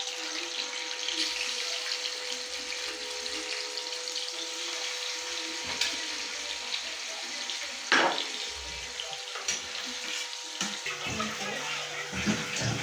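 Marinated chicken pieces frying in hot oil in a pan: a steady crackling sizzle, with one sharp knock about eight seconds in.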